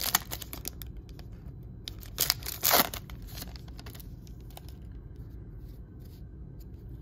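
Plastic foil wrapper of a baseball card pack crinkling as it is torn open, with a short louder rustle about three seconds in as the stack of cards comes out of the wrapper. After that, only faint handling ticks.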